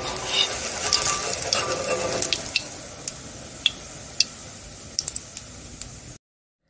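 Potato-and-pea chips deep-frying in hot oil, sizzling with crackles and pops. The sizzle is loudest over the first couple of seconds, then settles to a quieter hiss with scattered sharp pops, and cuts off suddenly near the end.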